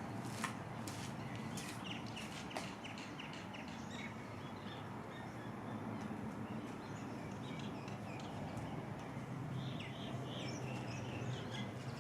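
Outdoor ambience: birds chirping in short calls over a low steady rumble, with a couple of sharp clicks early on.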